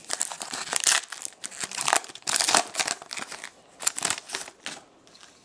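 Foil wrapper of a trading card pack being opened and crinkled by hand: irregular bursts of crackly rustling that die down near the end.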